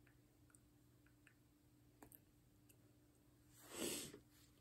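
Near silence with a few faint clicks of plastic Lego pieces being handled and fitted. Near the end comes one brief soft rush of noise, lasting about half a second.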